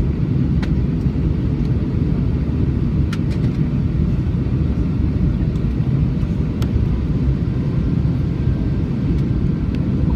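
Steady low rumble of cabin noise inside an Airbus A320 in flight: engine and airflow noise heard through the fuselage, with a few faint clicks.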